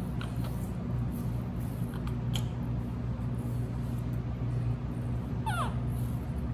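A short, high-pitched squeak from a baby monkey, falling steeply in pitch, about five and a half seconds in, over a steady low hum in a small room, with a few faint clicks earlier on.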